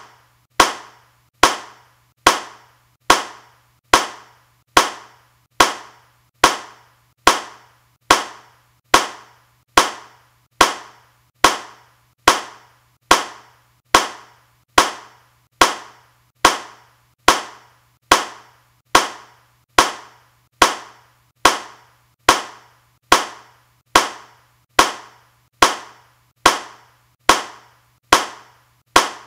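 A single hand clap repeated at an even pace, a little more than once a second, each a sharp crack that dies away quickly.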